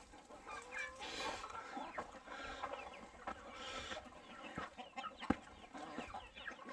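A flock of chickens clucking and chirping softly, many short overlapping calls. There is a single sharp tap about five seconds in.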